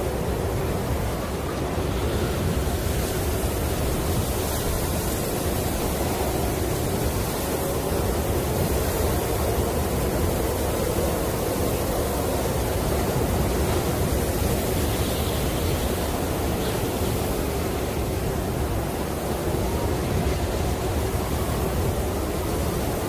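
Snowstorm wind blowing in a steady, even rush, with slight swells and no gusts or knocks standing out.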